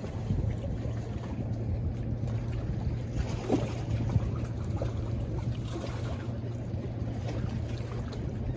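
Steady low rumble of wind on the microphone and surf, with a constant low hum underneath and a few faint clicks.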